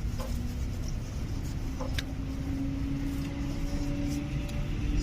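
Tata Hitachi hydraulic excavator running: a low steady engine rumble with a steady whine that rises slightly in pitch from about a second and a half in, and a few sharp clicks or knocks.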